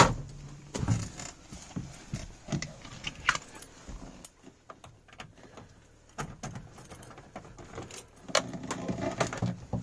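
Car keys jangling and clicking at the ignition, with scattered small clicks and rattles; no engine is running yet.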